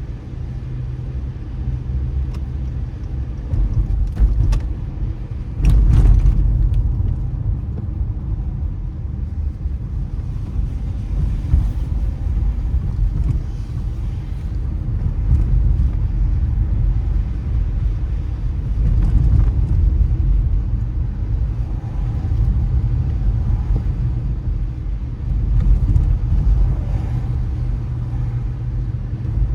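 Car driving on a wet road: a steady low rumble of road and tyre noise, with a couple of sharp knocks about four and six seconds in.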